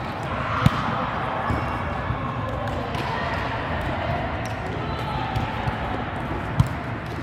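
Volleyball smacks ringing in a large gym hall: two sharp hits, one about half a second in and one near the end, with a few fainter ones between, over a steady background of voices and court noise.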